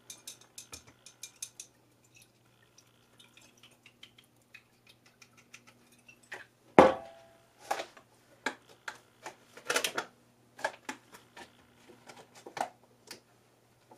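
Clinks, taps and rustles of small pots and a watering container being handled while herb cuttings are watered, with one louder knock that rings briefly about seven seconds in. A faint steady hum runs underneath.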